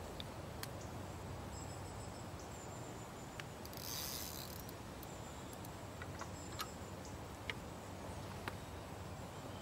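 Fishing rod and reel being handled: a few light clicks scattered through, and a brief swish about four seconds in, over faint riverside background noise.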